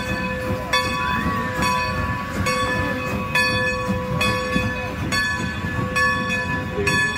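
Locomotive bell of a 2-10-0 decapod steam locomotive ringing in a slow, even rhythm, a little over one strike a second, while the engine rolls in with a low rumble underneath.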